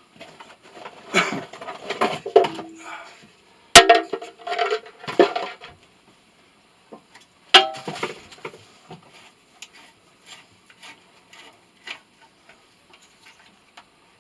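Metal tools and parts clanking and clinking while a motor is taken apart by hand. There are two sharp metallic strikes, about four and seven and a half seconds in, that ring briefly, and scattered lighter knocks between and after them.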